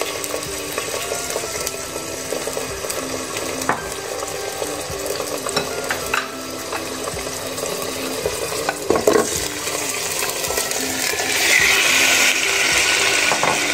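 Raw chicken pieces sizzling in hot cooking oil in a pot, with a few short knocks as pieces are set in. The sizzle grows louder near the end as a larger batch of chicken goes into the oil.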